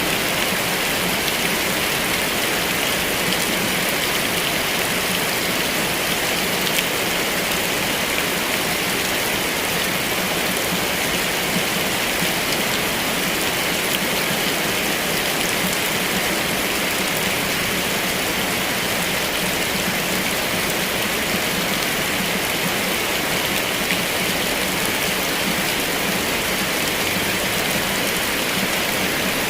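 Heavy rain falling steadily, an even, unbroken hiss of drops with no let-up or thunder.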